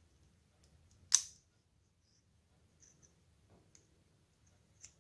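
Magnetic earbud of a Mivi Collar neckband earphone snapping against the end of the neckband: one sharp loud click about a second in and a smaller one near the end, with faint handling ticks between.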